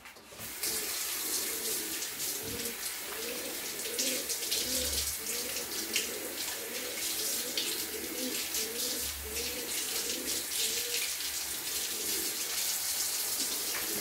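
Kitchen tap running into the sink, water splashing steadily, with a low wavering gurgle underneath. The water comes on about half a second in.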